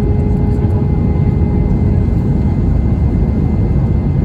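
Steady cabin noise inside an Airbus A320 on descent with its flaps extended: a low rumble of airflow and engines with a few faint, steady whining tones running through it.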